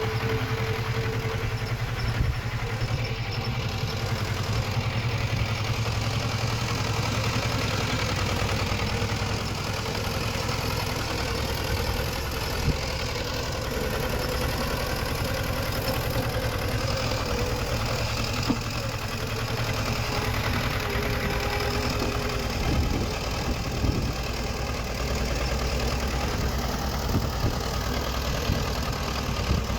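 Diesel engine of heavy earth-moving machinery running steadily, with a few short clanks.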